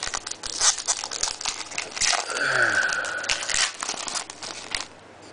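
Foil wrapper of a 2014-15 SP Authentic hockey card pack crinkling and tearing as it is opened by hand, stopping near the end.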